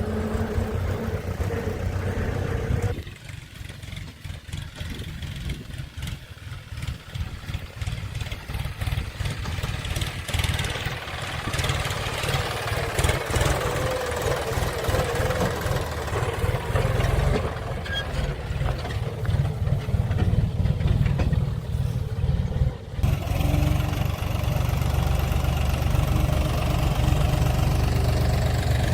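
Diesel engine of a working machine running, a low steady rumble that drops away sharply about three seconds in, builds back up and changes suddenly again about twenty-three seconds in.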